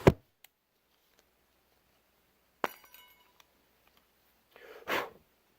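Metal case of an antique repeater pocket watch clicking as it is set down and its cover worked open: a sharp click at the start, then about two and a half seconds in a sharp metallic clink that rings briefly. A short soft rustle follows near the end.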